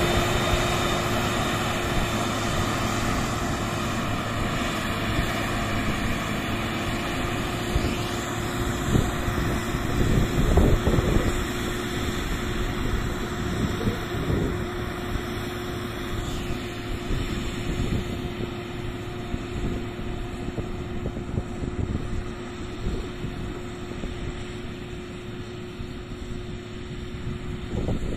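XCMG 1803BR motor grader's diesel engine running steadily under load while it grades the road, slowly fading as the machine pulls away, with gusts of wind on the microphone.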